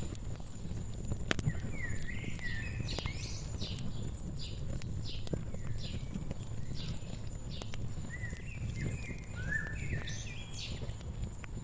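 Wood fire crackling with a steady low rumble and scattered sharp pops, while a songbird sings two runs of quick chirps, one a couple of seconds in and one near the end.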